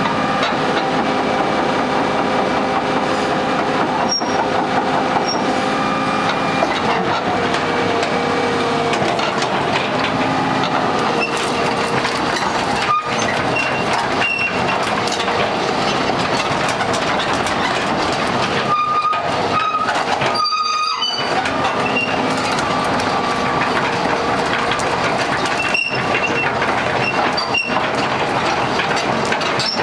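Kubota KX200-2 excavator running and working, a steady machine noise with high metallic squealing tones that come and go.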